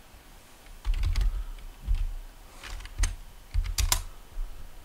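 Computer keyboard typing: a handful of separate key presses with short pauses between them, several with a dull low thump beneath the click.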